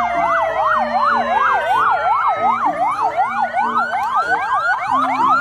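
Ambulance sirens sounding together: a fast yelp rising and falling about three times a second over a slower wailing tone, changing near the end to quick, repeated rising whoops.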